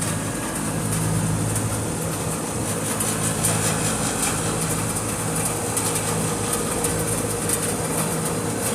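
Daikin rooftop HVAC unit running, its compressor and condenser fan making a steady low hum over a whoosh of air.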